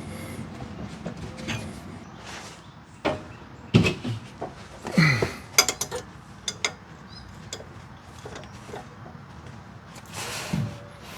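Metal knocks, clicks and scraping as a suspension arm and its bolt are worked into the steering knuckle, with several louder knocks in the middle.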